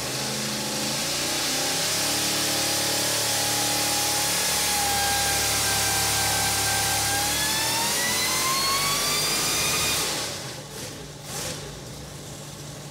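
Supercharged 454 cubic-inch Chevrolet big-block V8 making a wide-open-throttle dyno pull, heard through the control-room glass: it runs loud, held near its 4200 rpm stall speed, then climbs steadily in pitch as the dyno lets it accelerate. About ten seconds in the throttle shuts and it drops back to a much quieter low-speed run.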